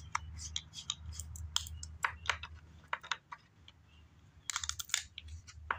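Irregular light clicks and taps from handling paint bottles and tools on a workbench, with a quick run of clicks near the end, over a steady low hum.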